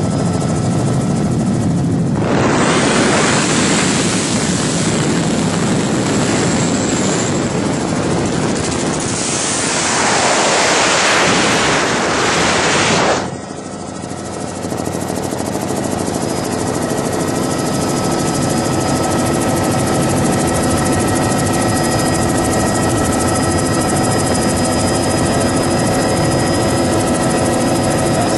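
Cabin drone of a high-wing light aircraft's piston engine and propeller, steady with fixed humming tones. From about two seconds in, a loud rush of wind noise covers it and cuts off suddenly about thirteen seconds in, after which the steady drone alone goes on.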